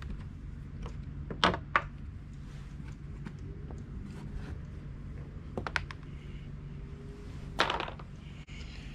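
Short clicks and rustles of small parts and paper being handled: a couple about one and a half seconds in, a few more near the middle, and one a little before the end, over a steady low hum.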